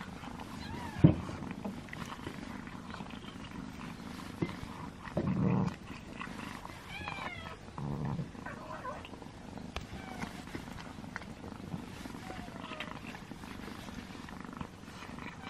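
A mother cat and her kitten eating chicken from a bowl up close: chewing and mouth sounds over a steady cat purr. A sharp click about a second in is the loudest moment, and a few short high sliding calls come and go.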